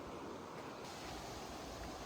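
Steady outdoor wind hiss with no distinct events, turning a little brighter just under a second in.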